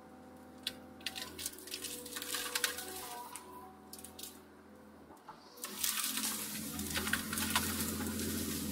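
Hyundai R220LC-9A excavator's engine and hydraulics running steadily under load, heard from inside the cab, over the crackling and snapping of brush and branches as the rake bucket drags them. The crackling grows louder and denser from about six seconds in.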